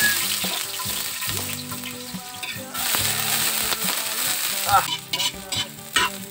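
Chopped garlic and onion sizzling in hot oil in a metal wok as they are pushed in from a chopping board. The sizzle gets louder about three seconds in, and a few sharp clicks come near the end.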